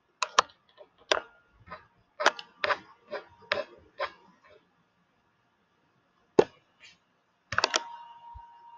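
Computer mouse clicking: a quick run of about a dozen sharp clicks, then a pause and a few more clicks near the end. A faint steady tone comes in with the last clicks.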